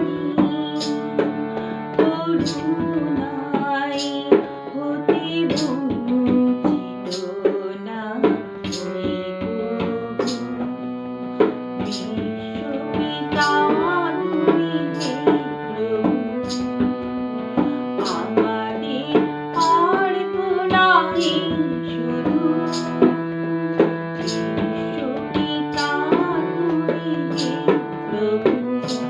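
A woman sings a Bengali devotional song over a harmonium, accompanied by tabla and a hand-held shaker keeping a steady beat.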